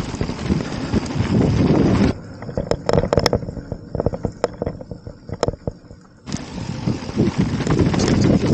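Mountain bike riding down a dirt flow trail: wind rushing over the camera microphone and tyres on dirt, cutting out abruptly about two seconds in to a quieter stretch of sharp clicks and rattles from the bike, then the rushing returning sharply near the end.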